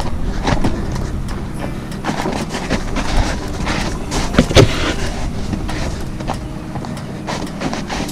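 A trail runner's footsteps scuffing over rock and snow, with rustling and knocks of handling on the handheld action camera's microphone. Irregular knocks throughout, the loudest about four and a half seconds in.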